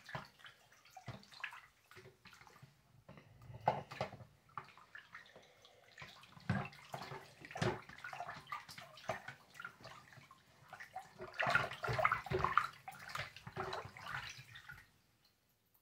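A hand stirring and splashing water in a bathroom sink to whip up a whirlpool, with irregular sloshes that get busier and louder about twelve seconds in, then stop near the end.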